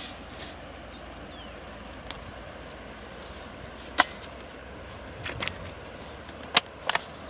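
A few sharp knocks and clicks over a steady outdoor background. The loudest comes about four seconds in, as a plastic bottle strikes the inside of a metal bowl; a few more clicks and taps follow near the end.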